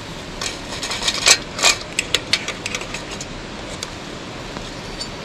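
Irregular sharp clicks and clacks of hard objects being handled, thickest in the first two and a half seconds and sparse after, over a faint steady hiss.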